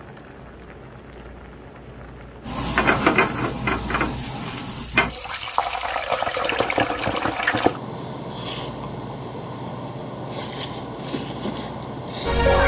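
Battered prawns sizzling and crackling in a deep fryer's hot oil, starting loud about two and a half seconds in and cutting off suddenly near eight seconds. A quieter steady hiss comes before it, and a few short slurps of noodles follow.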